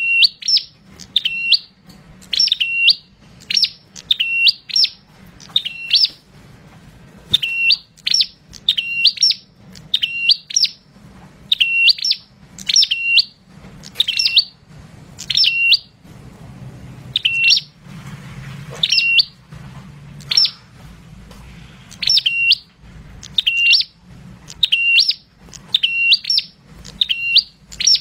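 Caged ashy tailorbird, kept as a 'prenjak', singing: about forty loud, high, sharp notes, each dipping then rising in pitch, mostly in quick pairs and threes with short pauses between runs.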